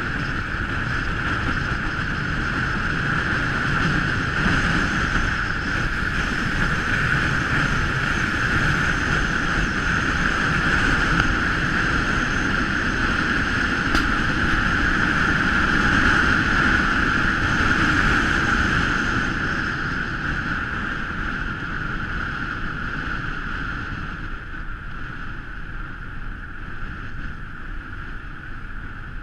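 Car driving on a snow-covered road, heard from a camera mounted outside on the bonnet: a steady rush of wind and road noise that gets somewhat quieter over the last ten seconds or so.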